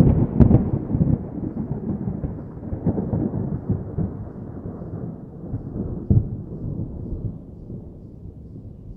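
A long, low roll of thunder with a few sharp cracks near the start, slowly dying away.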